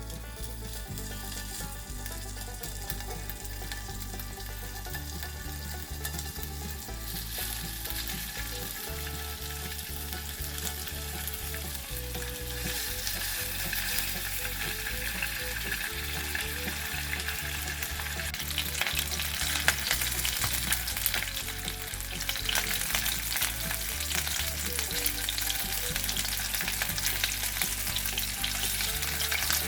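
Egg and bacon sizzling in a frying pan. The hiss gets louder about seven seconds in, with many small clicks scattered through it.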